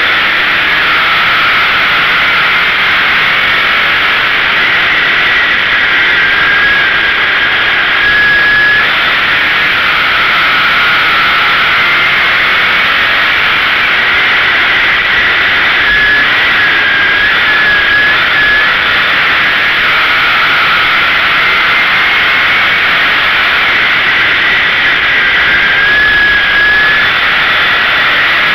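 Sportsman dirt-track race car engine running hard, recorded from inside the car. It is very loud and harsh, and its pitch climbs and drops several times as the revs build down the straights and fall away into the turns.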